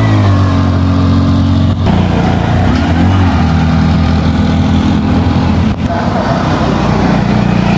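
Three-wheeled auto-rickshaw engine running as the vehicle drives past on the road, a steady low engine note.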